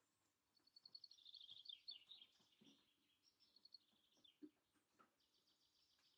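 Faint birdsong from small garden songbirds: a quick run of high chirping notes starting about half a second in, then shorter phrases and a high trill near the end.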